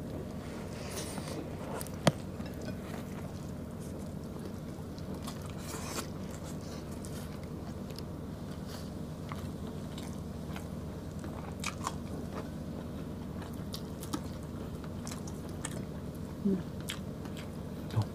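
Close-miked chewing and mouth sounds of people eating stewed beef and rice by hand, with scattered small clicks and one sharp click about two seconds in, over a steady low hum.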